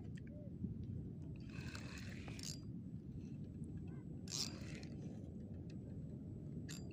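Legs wading through shallow seawater over a steady low rumble, with two short swishes of water, about one and a half and four seconds in.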